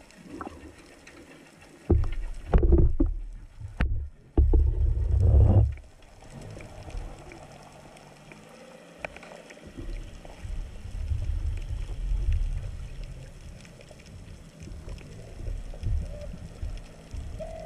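Water movement heard through an underwater camera mounted on a speargun: loud low sloshing and rushing for a few seconds with a few sharp knocks, then a steadier low underwater rumble.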